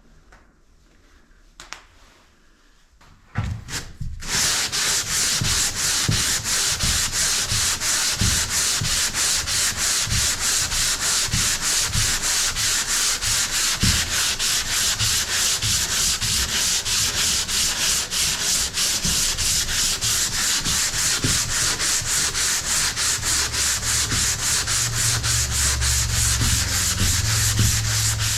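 Dried drywall joint compound on sheetrock being sanded in quick, even back-and-forth strokes, about three a second. The sanding starts about four seconds in and keeps going, with a low hum joining near the end.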